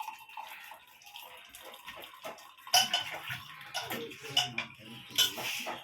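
Freshly boiled tea poured through a tea strainer into a cup: a splashing trickle of liquid with a few sharp clinks of metal and crockery, the loudest about three seconds in and again near the end.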